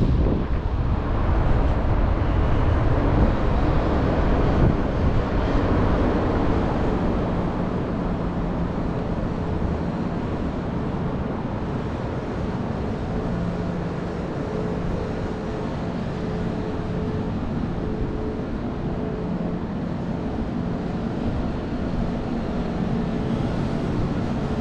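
Steady outdoor rumble of traffic, with a faint engine hum setting in about halfway.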